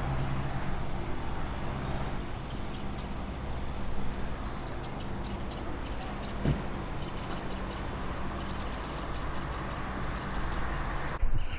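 Small songbird singing: short runs of rapid, high chirps, repeated about half a dozen times, over a steady low hum.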